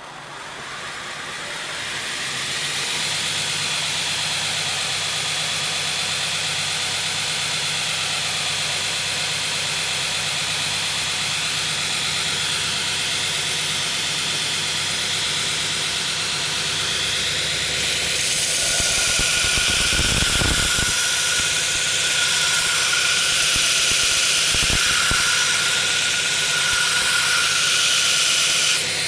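Belt grinder spinning up over the first few seconds, then running steadily with a hum and hiss. About 18 s in it gets louder, with a harsher hiss and a steady whine, as the steel knife blade is pressed against the worn 36-grit belt to grind off the sharp corner of its edge.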